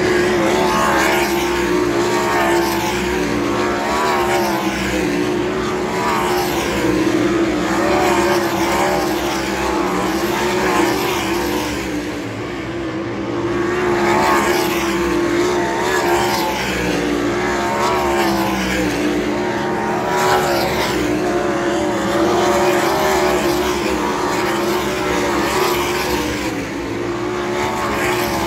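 Winged 410 V8 sprint cars racing flat out around a dirt oval, their engine notes swelling and fading as cars pass close by, again and again.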